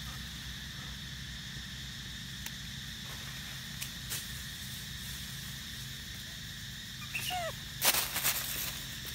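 Steady high-pitched background drone with a few faint clicks. About seven seconds in comes a short high call falling in pitch. Just before eight seconds there is a burst of loud crackling and rustling in dry leaf litter.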